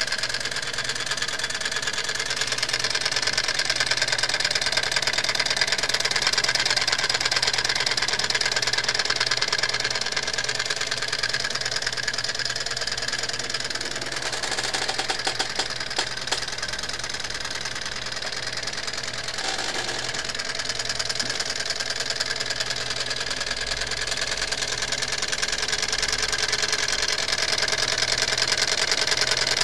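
Homemade tin-can Stirling engine running, its wire crank and linkage turning with a fast, steady mechanical clatter.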